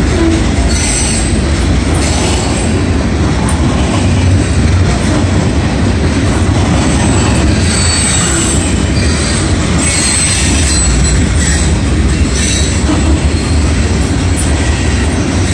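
Loaded covered hopper cars of a CSX freight train rolling past: a steady, loud low rumble of steel wheels on rail, with a high-pitched wheel squeal coming and going several times.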